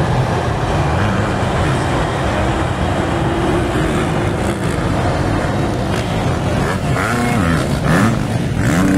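A pack of motocross dirt bikes racing, their engines running together. Toward the end, bikes come nearer and their engine notes rise and fall as the riders rev through the track.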